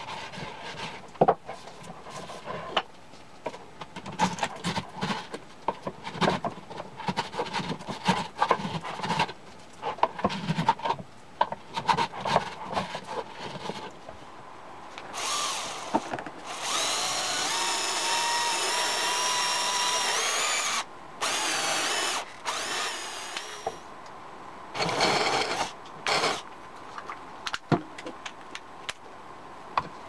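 Knocks and clicks of wooden parts being handled, then a cordless drill boring into a wooden slat in several runs, the longest about four seconds, its pitch rising slightly.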